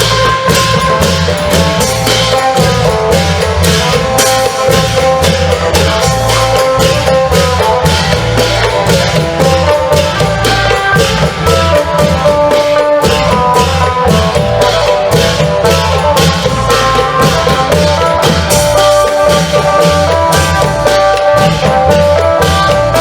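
Isan klong yao long drums and cymbals beating a steady, dense rhythm under a melody played on the phin, the plucked Isan lute.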